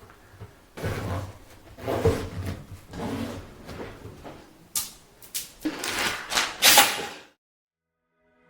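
Handling noise of teleprompter hardware: irregular knocks and scrapes, then a run of sharp clicks, cutting off suddenly into silence about seven seconds in.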